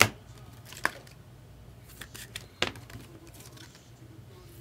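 Sharp clicks and taps of trading cards and packs being handled on a table: three louder ones spread over about three seconds, the first the loudest, with smaller taps between, over a faint low hum.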